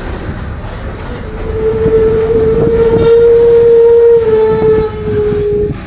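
Differential of a 2007 Marcopolo Torino bus on a Mercedes-Benz OF-1721 chassis, howling: a loud steady whine comes in about a second in, holds one pitch for about four seconds, then steps slightly lower and fades near the end, over the low rumble of the running bus.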